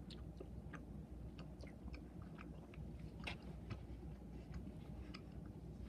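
Close-up mouth sounds of someone chewing food, with smacking lips: scattered short, irregular clicks.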